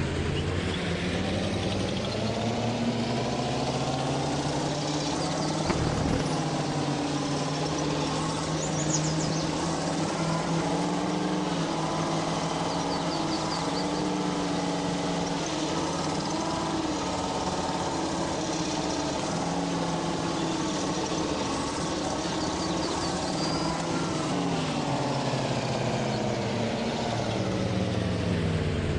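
A GAZ vehicle's engine running under way in its reduction (low-range) gearing. Its pitch climbs over the first couple of seconds, holds fairly steady, then drops off near the end.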